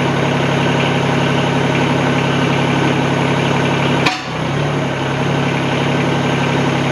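Mahindra eMax 20S compact tractor's diesel engine idling steadily, with one sharp knock about four seconds in, after which the engine note dips briefly.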